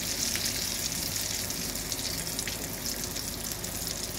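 Pointed gourd (parval) pieces frying in shallow oil in a steel kadhai: a steady sizzling hiss with a few small crackles.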